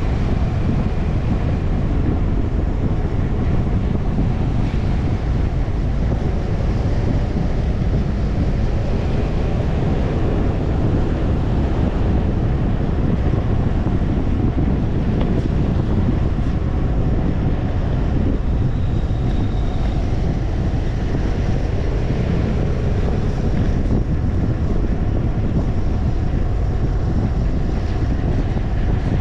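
Steady wind rush buffeting the microphone of a GoPro suction-cupped to the windscreen of a moving BMW C 400 X scooter, with no rise or fall in level.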